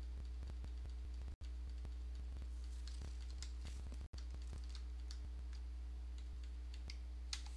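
Faint computer keyboard keys tapped in quick succession over a steady low hum.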